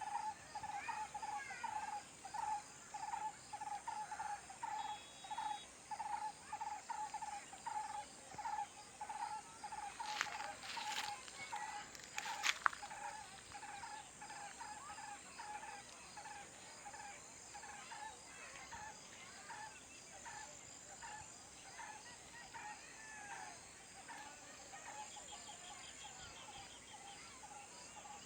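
Outdoor insect chorus: a steady high crickets' trill with many small chirps, over a call repeated about twice a second that grows fainter after the first half. A few sharp clicks come near the middle.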